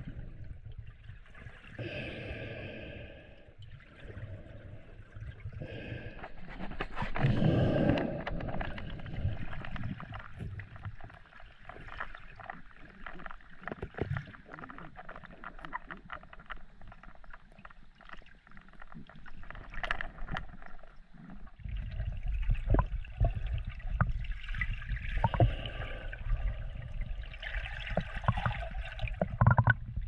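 Water gurgling and sloshing around a camera held underwater while snorkeling, with many small clicks and knocks. A louder swell comes about 7 seconds in, and a heavier low rumble of moving water sets in past the middle.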